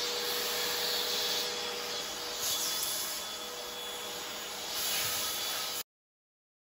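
Vacuum cleaner running steadily: a hiss of rushing air with a steady hum. It stops dead about six seconds in.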